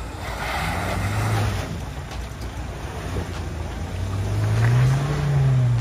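Mahindra Thar's engine revving under load as it climbs a steep sandy bank. The revs rise about a second in, drop back, then climb higher near the end and fall away, with a brief rush of noise around the first rev.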